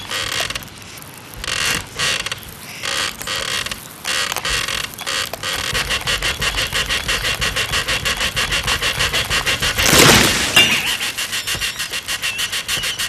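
Wood being cut through from inside a wooden slatted soffit: scratchy strokes at first, then a steady rasping of about four strokes a second. About ten seconds in comes a loud crack as a piece of the soffit breaks away and falls, and the rasping goes on.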